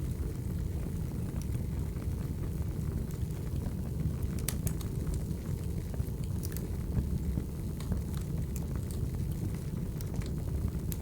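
Wood fire burning: a steady low rumble with scattered sharp crackles and pops, a quick cluster of louder pops about four and a half seconds in.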